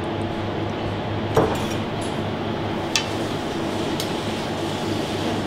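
Metal spatula clinking against a bowl and the steel counter while a fish fillet is plated: a dull knock a little over a second in, then two sharper clinks about three and four seconds in, over a steady ventilation hum.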